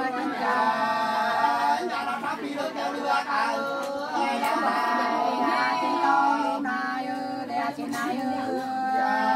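Unaccompanied sli singing, the Nùng folk duet song, with long held notes that waver and glide between pitches.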